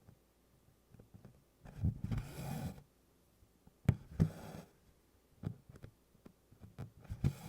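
Cross-stitch needle tapping through 24-count Congress cloth, with DMC embroidery floss drawn through in two swishes, the first long and the second short, and a few small soft taps between.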